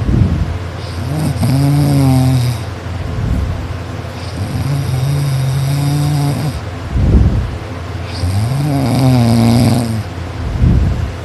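A person snoring very loudly, in a slow breathing rhythm: about three long pitched snores of a second or two each, with a low rattling rumble between them.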